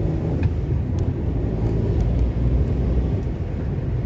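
Car driving, its engine and road noise a steady low rumble heard inside the cabin.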